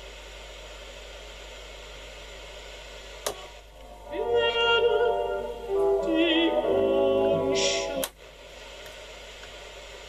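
Siemens UKW Automatic VHF transistor radio being switched between its preset pushbuttons. A steady low hiss, then a sharp click about three seconds in brings up a station playing music with a singing voice through the set's speaker. Another click a little after eight seconds cuts the music off and the hiss returns.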